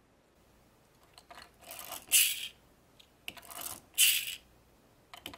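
Packaging and small plastic toys being handled in two bouts of rustling and clatter, each ending in a sharper, louder crackle, about two seconds apart.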